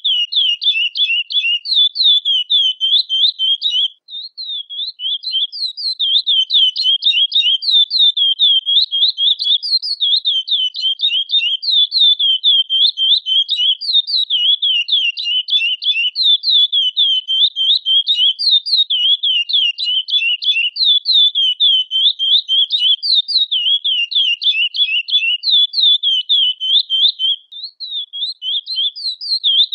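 Curió (chestnut-bellied seed finch, Sporophila angolensis) calling: a fast, unbroken run of short, high sweeping notes, several a second. There are brief pauses about four seconds in and again near the end.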